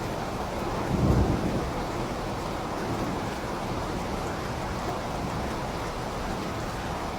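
Steady rain, with a short low rumble of thunder about a second in.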